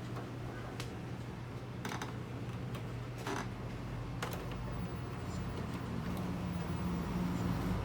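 Steady low hum, slowly getting louder, with four light clicks in the first half.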